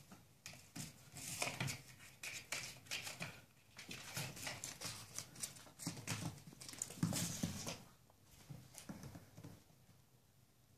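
Maine Coon kitten chasing and batting a scrap of paper across a parquet floor: a quick irregular run of light paw taps, scuffs and paper skittering on the wood, which thins out in the last couple of seconds.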